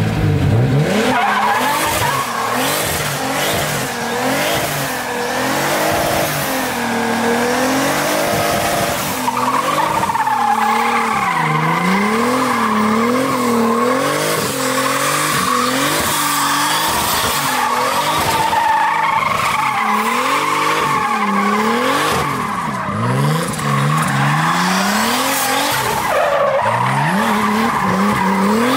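Turbocharged 2.5-litre BMW M50B25 straight-six in a BMW E30 drift car, revving up hard at the start and then rising and falling again and again as the car drifts, with the rear tyres squealing continuously.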